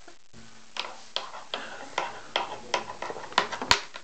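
Irregular sharp taps and clacks on a wooden high-chair tray as a baby bangs at it, about two or three a second, with the loudest knock near the end.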